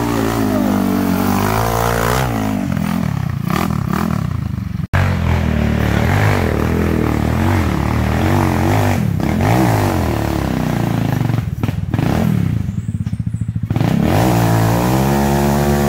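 Off-road buggy engine revving hard on a steep dirt climb, its pitch rising and falling with the throttle. Briefly drops back near the end, then revs up again.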